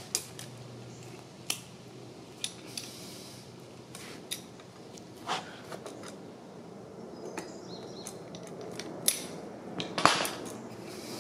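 Scattered light metallic clicks and clinks as a steel brake line, partly wrapped in a coiled spring guard, and a hand tube bender are handled and shifted on a bench. The loudest clink comes near the end.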